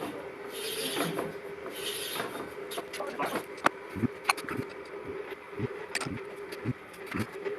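Drill running with a steady hum while drilling out a broken bolt from an exhaust manifold, with rhythmic swishing early on and scattered sharp clicks and knocks; the hum stops shortly before the end.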